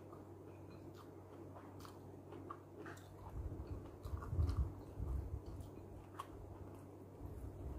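Close-up mouth sounds of a person eating by hand: soft clicks of biting and chewing, growing louder and heavier from about three seconds in as a new mouthful is taken.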